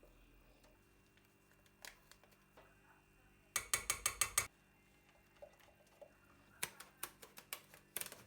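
A rapid run of about eight mechanical ratcheting clicks in under a second, followed a couple of seconds later by a scattering of lighter clicks and small knocks, as of kitchen utensils being handled.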